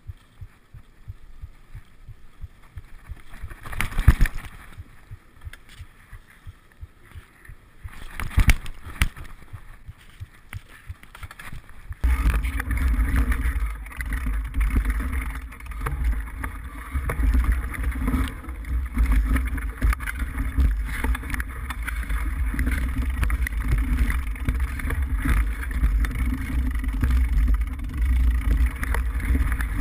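Mountain bike riding a rocky dirt trail: light rattling with two loud knocks about 4 and 8 seconds in, then from about 12 seconds in a steady heavy rumble of tyres on dirt and wind, picked up by a camera mounted low on the bike frame.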